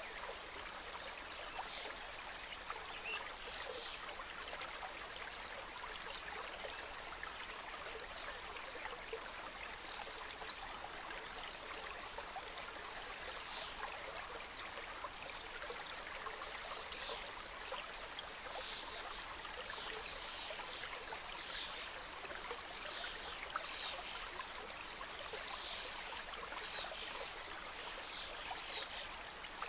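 Mountain stream cascading, a steady rush of flowing water. Short, high bird chirps come through it, sparse at first and more frequent in the second half.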